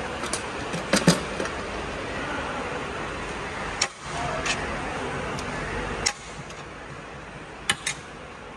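A few sharp metallic clinks of a serving spoon against a steel pot as aloo dum is ladled out, over steady background noise.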